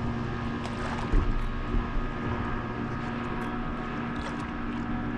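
A steady motor drone of several held tones, with a few short splashes of a paddle blade dipping into the water beside a stand-up paddle board.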